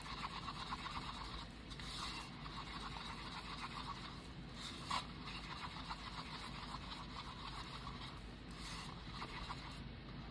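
Stir stick scraping round the inside of a paper cup, mixing epoxy resin tinted with alcohol ink, in short repeated scrapes, with one light tap about five seconds in.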